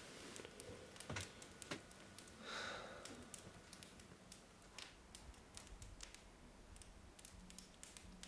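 Near silence of a quiet room, broken by faint, irregular clicks and ticks and a brief soft rustle about two and a half seconds in.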